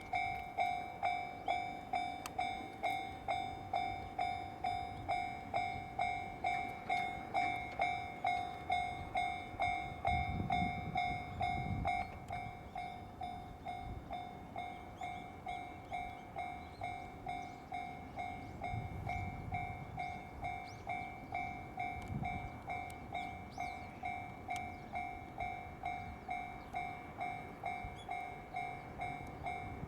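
Japanese railway level-crossing warning bell ringing: an electronic two-tone ding repeating quickly and evenly. It drops to a lower volume about a third of the way in, and low rumbles pass underneath at times.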